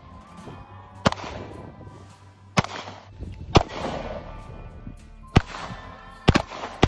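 Semi-automatic pistol shots fired one at a time, about six or seven sharp cracks spaced roughly a second or more apart, with two close together near the end, over background music.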